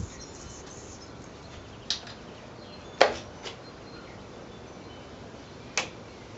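Four separate sharp clicks and knocks, the loudest about three seconds in, with no motor running, over a faint steady background.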